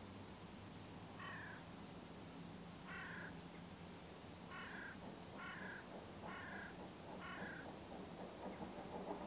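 A crow cawing six times, short caws with the last four about a second apart, over a faint steady low hum.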